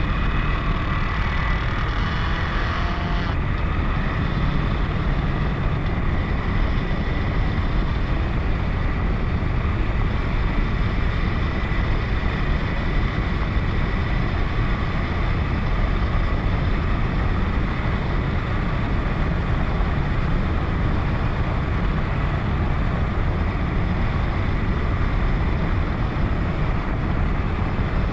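KTM 1090 Adventure's V-twin engine running at a steady speed under a dense, even rush of low wind noise on the microphone.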